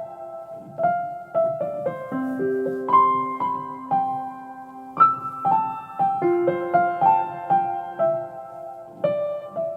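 Background music: a slow, gentle piano melody of single notes that ring out and fade.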